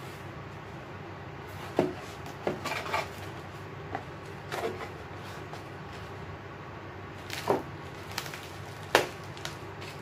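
Cardboard box flaps and bubble-wrapped packages being handled: scattered light taps, knocks and rustles, with a few sharper knocks about two seconds in, near 7.5 seconds and near the end. An electric fan runs steadily underneath.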